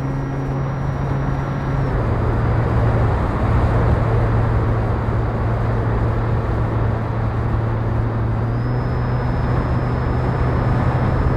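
Wind rushing over an onboard camera on an E-flite Opterra RC flying wing in flight, under the steady hum of its electric motor and propeller. The motor's pitch drops slightly about two seconds in and rises again near the end, as the throttle changes.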